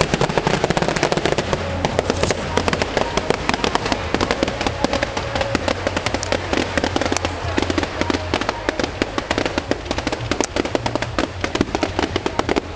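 Fireworks display: aerial shells bursting with dense, rapid crackling, many sharp pops a second without a break.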